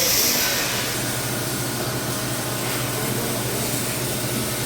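A power tool's motor running steadily with a hiss and a constant low hum.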